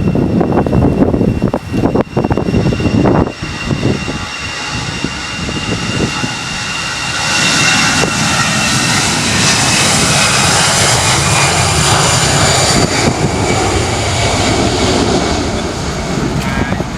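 Airbus A320 jet engines passing: a steady jet noise with thin, high whining tones that grows a few seconds in, stays strongest through the middle and eases near the end. Wind buffets the microphone for the first few seconds.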